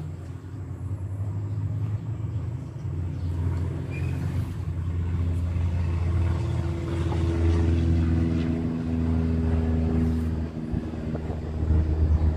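Low, steady rumble of an engine running, growing louder over the first several seconds and dipping briefly near the end.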